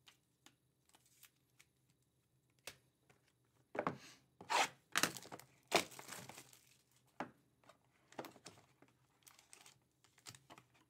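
Plastic and foil trading-card packaging crinkling and rustling in the hands, in short irregular bursts, busiest between about four and six seconds in.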